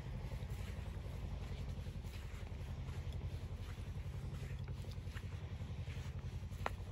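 Footsteps of a person walking, about two a second, over a steady low rumble. Near the end there is one sharper click.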